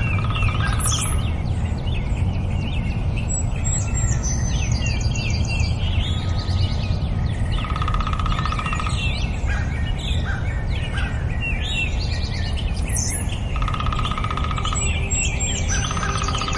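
Forest birds chirping and singing, with a woodpecker drumming in rapid rolls about a second long, heard several times, over a steady low rumble.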